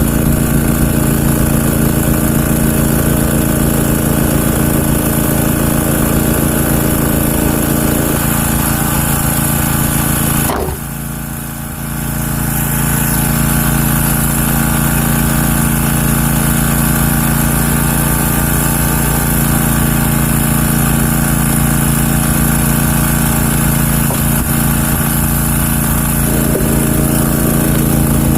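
Country Clipper zero-turn mower's engine running steadily under load. About ten seconds in its sound briefly drops and then comes back up.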